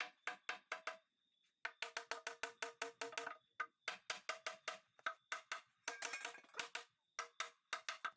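Background music with a fast, clattering wood-block-like percussion beat, several sharp strikes a second, pausing briefly about a second in.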